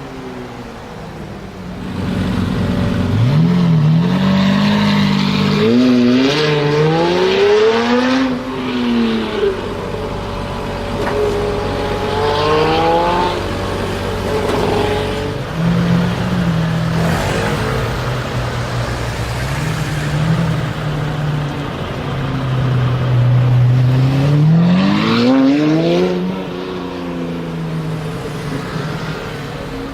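Lamborghini Murciélago V12 with a Capristo exhaust revving hard: engine pitch climbs in steps and drops back several times, runs steadier for a while, then climbs steeply once more near the end before falling away.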